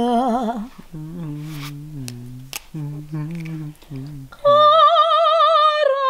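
Unaccompanied singing. A woman's voice with a wide vibrato fades out, a lower voice hums a few stepped notes, and about four and a half seconds in a high note is sung and held with vibrato.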